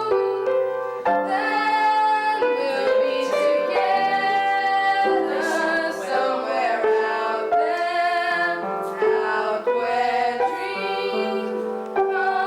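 A song sung with piano accompaniment, with long held notes that step from pitch to pitch.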